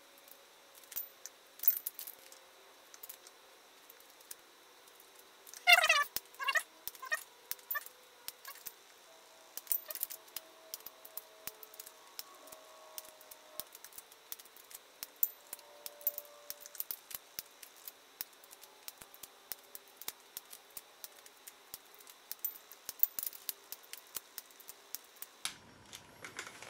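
Torque wrench ratcheting as the water pump bolts are tightened in stages toward 10 newton meters: runs of quick metallic clicks, with a short squeak about six seconds in.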